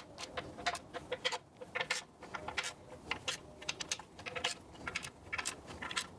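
Hand ratchet clicking in quick, irregular runs as it snugs up the lower oil pan bolts by hand.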